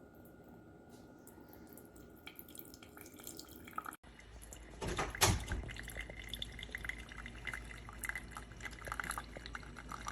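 Single-serve coffee maker brewing: coffee trickling and dripping into a cup. The first few seconds are quiet with a faint steady tone; about four seconds in the liquid sound starts, with a louder gush a second later and then steady dripping.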